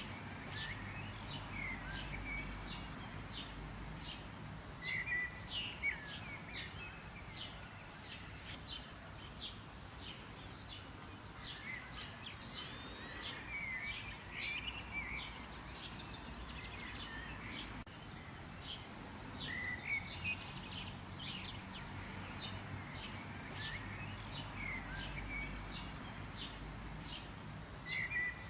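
Wild birds chirping and singing: many short, quick high notes throughout, with busier bursts of song every several seconds. A low steady rumble lies underneath.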